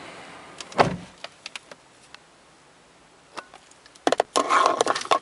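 Car door pulled shut from inside, closing with one loud thud about a second in. A few faint clicks follow, then a cluster of clicking and rustling handling noise near the end.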